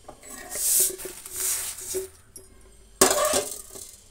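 Freshly dry-roasted horse gram being scooped with a steel spatula out of a steel pan and tipped onto a steel plate: dry grains rattling and scraping against metal in three pours, the last starting with a sharp metal clink about three seconds in.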